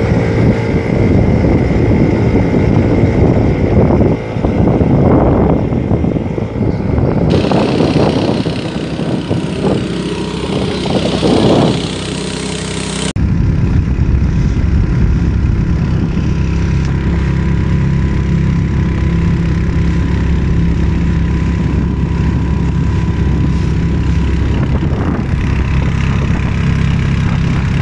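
Small outboard motor driving a boat, for the first stretch under gusty wind on the microphone with surges of water and spray. After a sudden cut about 13 seconds in, the motor is heard as a steady, even drone.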